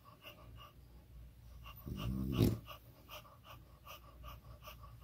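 French bulldog breathing fast in short, faint pants, about three or four a second. About two seconds in comes one louder, longer pitched breath lasting about half a second.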